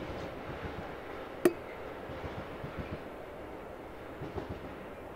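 Distant freight train rolling away: a faint, steady low rumble of the wagons on the rails. A single sharp click stands out about a second and a half in.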